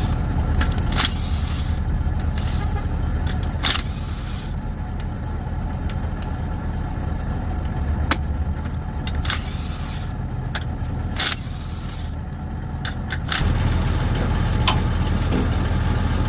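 Steady low rumble of motor vehicles that gets louder about 13 seconds in, with scattered short metallic clicks and clinks.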